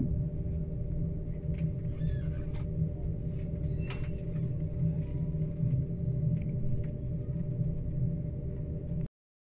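Passenger train running, heard from inside the carriage: a steady low rumble with a constant hum, and a few faint squeaks and clicks about two and four seconds in. The sound cuts off suddenly near the end.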